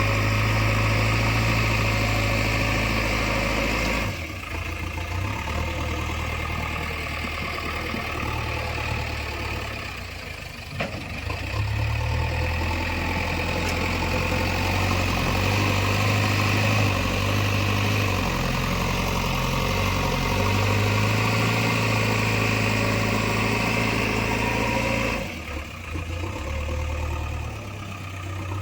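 JCB 3DX Eco Xcellence backhoe loader's diesel engine running steadily. It eases off a few seconds in, dips again about a third of the way through, picks back up, and eases off again near the end as the machine works.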